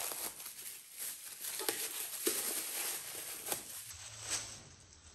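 Plastic freezer bag crinkling and rustling as a book is handled and taken out of it, with a few sharp ticks; the rustling dies down about four seconds in.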